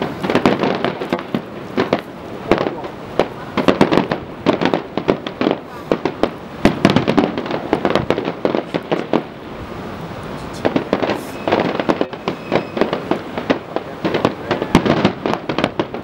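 Fireworks display bursting: a dense, uneven series of bangs, often several a second, some coming in quick clusters.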